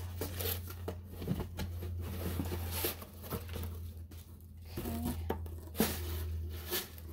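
Paper wrapping crinkling and tearing in irregular bursts as a boxed item is unwrapped by hand, over a steady low hum.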